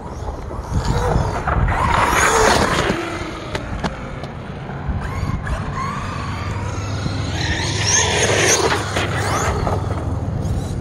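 Brushless electric motor of an ARRMA Notorious RC car whining up and down in pitch as the car is driven. The whine swells about two seconds in and again about eight seconds in.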